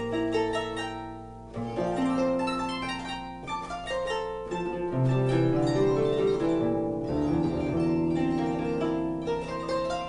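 Harp music: quick plucked notes over long, low held notes.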